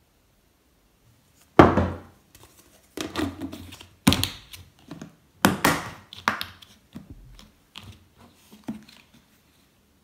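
A plastic lid being pressed down and snapped onto a round plastic tub of marinating meat, sealing it. About nine sharp knocks and snaps come at uneven intervals, the loudest about one and a half seconds in.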